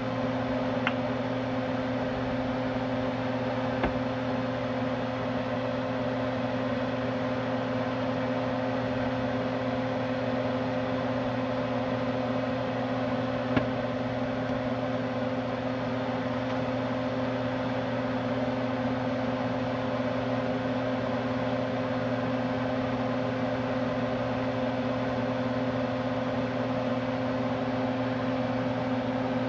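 Steady electric-motor hum over a faint hiss, such as a kitchen appliance or fan gives, broken by three light clicks.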